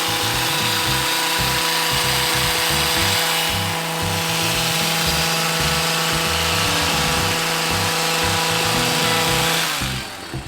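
Hedge trimmer running steadily at full speed, then cutting out near the end.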